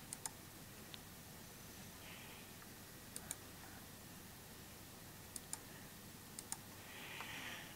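Faint computer mouse clicks, mostly in quick pairs, heard about four times over a low steady hiss.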